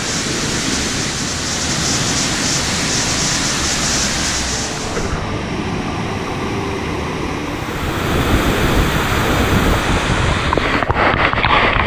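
Steady rush of a shallow rocky stream. About eight seconds in it changes to the louder pour of a waterfall.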